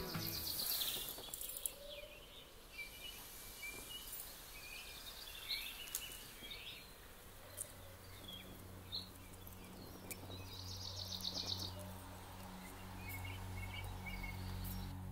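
Outdoor ambience with small birds chirping on and off, a few faint clicks, and a trill about two-thirds of the way through. A low steady hum comes in about halfway.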